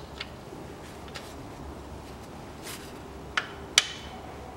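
A few separate sharp metallic clicks and clinks from a torque wrench and its Torx bit at the oil pan drain plug as it is tightened and the tool is taken off, the loudest a ringing metal clink near the end.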